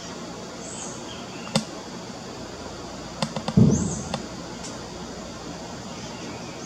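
A few scattered sharp cracks over steady outdoor background noise, with a quick cluster about three seconds in followed by a heavier dull thump, the loudest sound.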